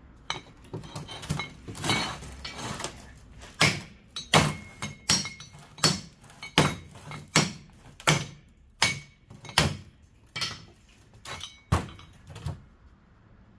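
Repeated hammer-like blows on a scrap electric fan motor, softer and uneven at first, then a steady run of sharp strikes about one every three-quarters of a second, some ringing briefly. The stubborn copper windings are being forced through the motor's stator.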